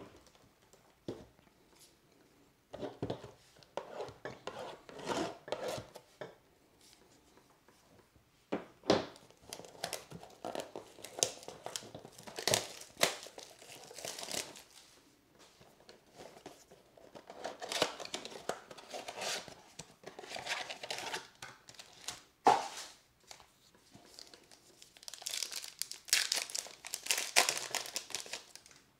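Baseball card pack wrappers being torn open and crinkled by hand, in irregular crackling bursts with short pauses between.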